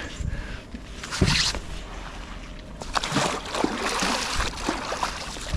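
Water sloshing and splashing in uneven bursts, about a second in and again from about three to four and a half seconds in.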